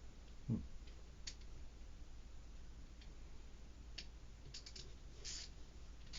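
A Wera ratchet screwdriver being worked by hand: a few light, irregular clicks from its ratchet mechanism, with a short low thump about half a second in.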